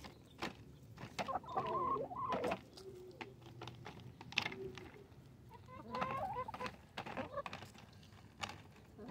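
Hens clucking and calling in two bouts while they feed, with sharp little taps throughout as their beaks peck food from a foil pie tin.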